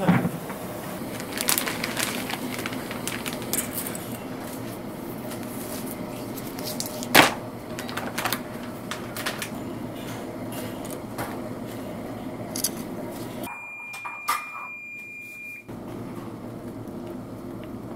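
Kitchen cooking sounds: water boiling in a small pot of noodles, with scattered clinks and knocks of utensils and cookware, one sharp knock about seven seconds in. Later the background drops away and a steady high beep-like tone sounds for about two seconds.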